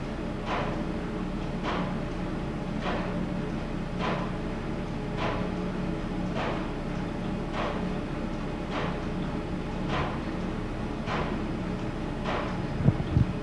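Belt-driven shop machinery running off an overhead line shaft turned by a 40-horsepower DC motor: a steady hum with a sharp click repeating evenly about every 1.2 seconds. A few heavy low thumps come near the end.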